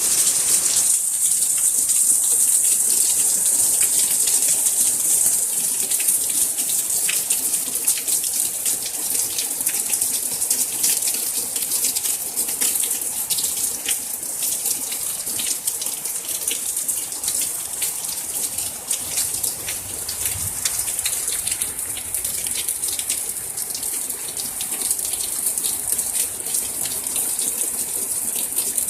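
Heavy rain in a downpour: a dense, steady hiss of water with countless close drops ticking through it, easing slightly after the first ten seconds or so.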